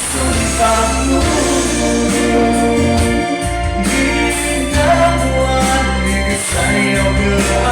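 A band playing a song with a singer holding long sung notes over a steady bass line.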